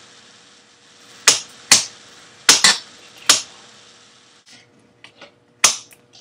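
A kitchen knife chopping onion on a cutting board: a series of irregular sharp knocks, the loudest in the first half and fainter toward the end.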